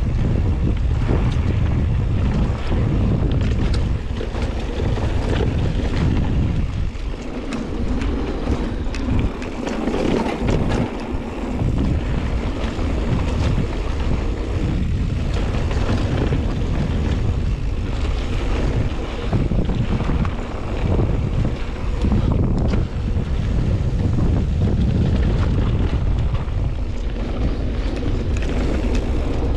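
Mountain bike riding along a dirt trail, with heavy wind buffeting on the microphone, tyre noise, and many small clicks and rattles.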